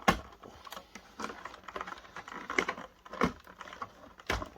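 Scattered sharp clicks and light knocks, about five of them, the first the loudest: hands handling the plastic and metal parts of a video projector being taken apart, working its wires and circuit board loose.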